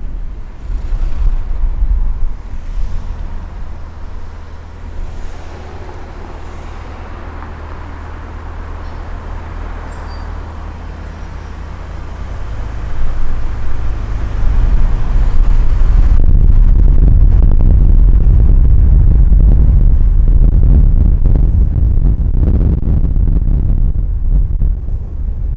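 Driving noise of a moving car: a continuous low rumble of tyres, engine and wind, growing much louder and heavier about halfway through.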